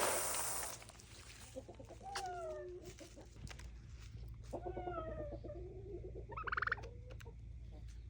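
Farm poultry calling. A short rushing noise in the first second, then a few clucking calls that fall in pitch, and a brief rattling call near the end.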